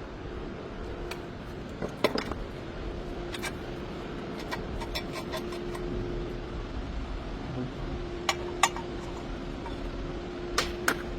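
Sharp metallic clinks, a few scattered and two pairs close together, over a steady low mechanical hum.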